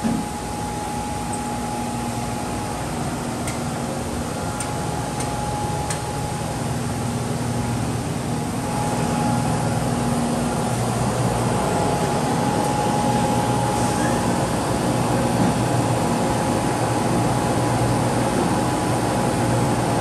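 Steady drone of a Holz-Her Dynestic 7532 CNC nesting router and its shop machinery running, with a constant whine over a low hum. It grows louder about nine seconds in, and a few faint ticks come before that.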